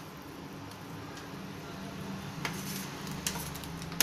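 A steel pot of water at a rolling boil on a gas stove, bubbling steadily, with a few light clicks as small rice-flour dough balls are tipped into it from a steel plate.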